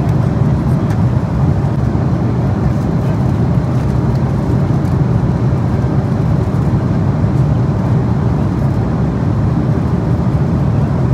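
Steady cabin noise of an Airbus A330-200 airliner in flight, heard inside the passenger cabin: an even, unbroken noise of engines and airflow, strongest in the low range.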